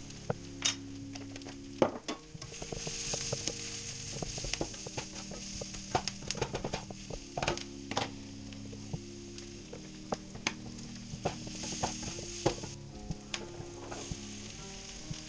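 Chopped onions and ground spices sizzling in a hot oiled frying pan, with a steady hiss and frequent sharp clicks and scrapes of a utensil stirring against the pan.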